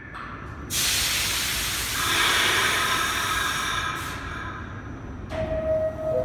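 R46 subway car releasing compressed air in a long, loud hiss that eases off after a few seconds, as the stopped train prepares to depart. Near the end a two-tone falling door chime sounds, the signal that the doors are about to close.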